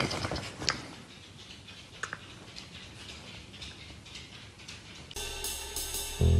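Small dog snapping at a tennis ball, its jaws clacking in a few sharp clicks in the first two seconds. About five seconds in, jazz-like music with brass and a beat begins.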